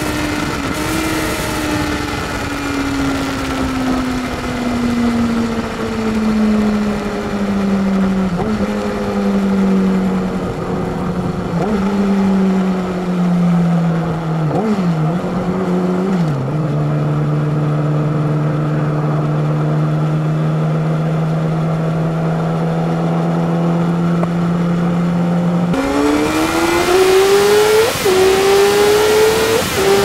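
Yamaha YZF-R6 RJ11 inline-four through an SC-Project exhaust. The engine note falls steadily as the bike slows, with a few brief throttle blips, then holds a steady low idle for about ten seconds. About 26 s in the revs climb hard, with two quick gear changes near the end.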